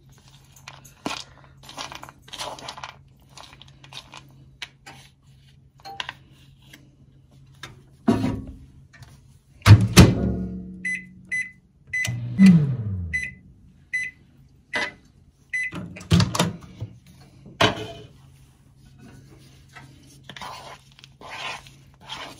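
A spoon scraping and clinking against a bowl as it stirs chocolate chips, with several heavy knocks, the loudest about ten seconds in. Around the middle comes a string of about ten short, high microwave beeps at uneven spacing.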